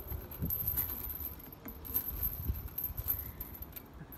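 Metal swing chains and hanger hooks clinking lightly and irregularly as a toddler's bucket swing swings back and forth.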